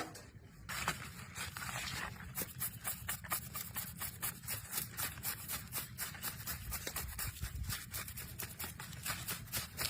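Rapid repeated scraping strokes, several a second, starting about a second in, over a low steady background hum.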